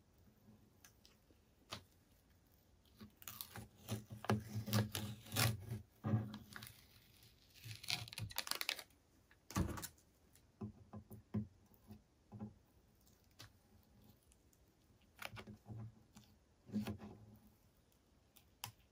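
Masking tape being peeled off painted wood: short crackling tears and rustles in several bursts, with a sharp knock about halfway through.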